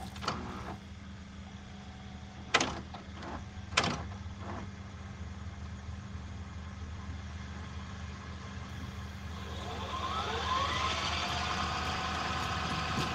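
Steady low hum of a car's engine and road noise heard from inside the cabin, with a few sharp knocks a few seconds in. Several rising tones swell in over the last few seconds.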